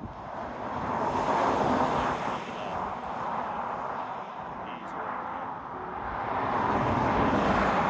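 Wind and road noise while riding a motorcycle: a steady rush over the microphone with a low rumble underneath, swelling about a second in and again near the end.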